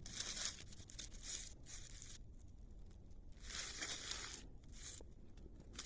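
Faint rustling and crunching of dry vegetation in several short spells, as of someone moving through weeds or brush.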